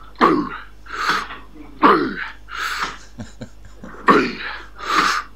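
A man laughing hard in wheezing fits: a falling voiced 'ha' followed by a breathy rush of air, repeated about once a second.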